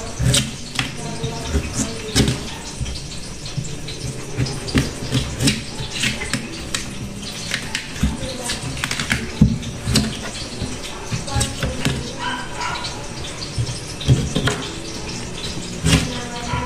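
A kitchen knife peeling the skin off cassava roots: irregular scraping strokes with sharp clicks of the blade.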